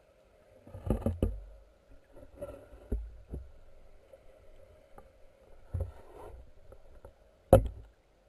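Muffled thumps and water sloshing picked up by a submerged camera as it moves, over a faint steady hum. There are several dull knocks, and the sharpest comes near the end.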